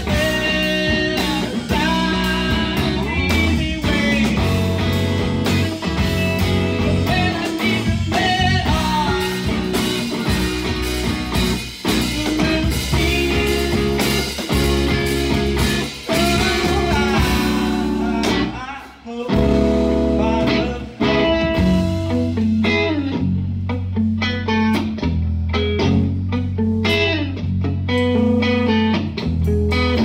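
Live rock band playing: electric guitar with bending lead lines over bass guitar and drum kit. About nineteen seconds in the music drops out for a moment, then the band comes back in on a riff of long, low bass notes.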